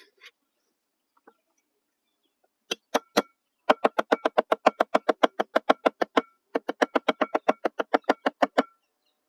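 A knife chopping rapidly on a wooden cutting board: two long runs of quick, even strokes, about seven a second, with a short pause between them.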